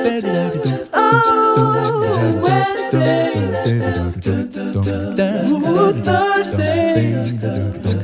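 Music: a song with a singing voice over a repeating beat.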